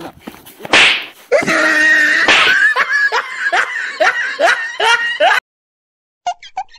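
Laughter: a run of short, rising 'ha' sounds, about two a second, following a brief hissy burst about a second in. It cuts off suddenly, and a few short blips come near the end.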